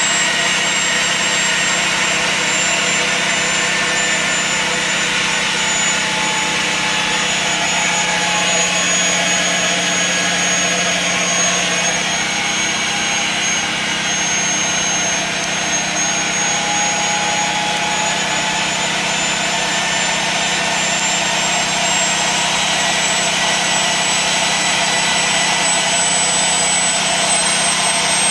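Steam-driven Tesla turbine with a 3-inch rotor spinning at high speed: a steady loud rush of steam with a high, thin whine. The whine sinks slowly in pitch as the generator's load drags the speed down, then climbs again over the last few seconds as the load is switched off and the turbine speeds up.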